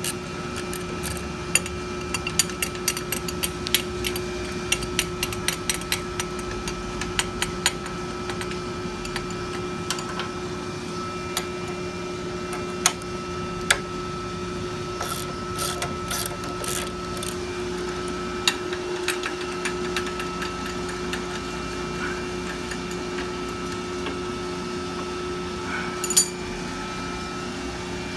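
Hand tools clicking and ticking against metal as the set screws are worked loose on the collars of a motor-to-pump lovejoy coupling. Many quick clicks in the first several seconds, thinning out later, with one sharper click near the end. A steady machinery hum runs underneath.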